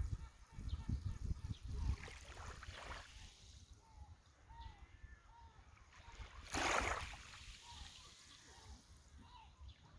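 Calm sea water lapping gently at the shore, with one short louder splash of a small wave about two-thirds of the way in. Faint seagull calls repeat throughout.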